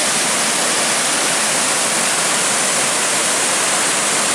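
Mountain burn pouring over rocks in a small waterfall and cascades: a steady rush of falling water.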